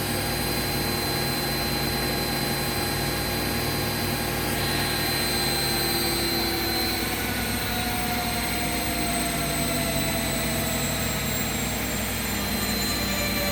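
Bosch and Hoover washing machines on their final spin together: a steady whirring drum-and-motor hum with a high motor whine. About halfway through, some of the whine tones begin to drift slowly down in pitch.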